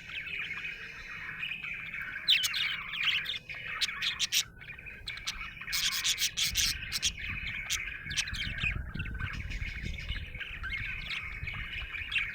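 Budgerigar chattering and warbling continuously, with clusters of sharp clicks over it. A low rubbing rumble joins about six and a half seconds in and runs under the chatter.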